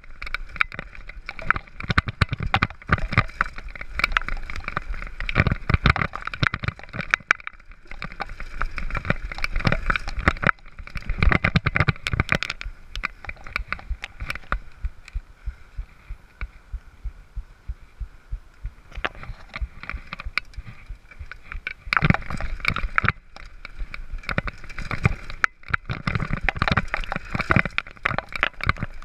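Mountain bike descending a rough dirt trail, heard from a handlebar-mounted camera: constant rattling and clattering of the bike and camera mount over bumps, with tyre noise on the dirt. The clatter eases off for several seconds about halfway through, then picks up again.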